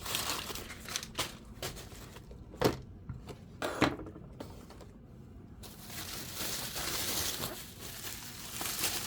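Packaging being handled while diecast model cars are unpacked: crinkling and rustling, with two sharp clicks or taps a little over a second apart, then a longer stretch of rustling near the end.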